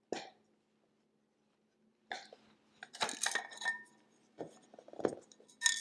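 Light, scattered knocks and metallic clinks, a few with a brief ring, from handling the metal internal parts and screws of a 2013 Mac Pro as it is taken apart.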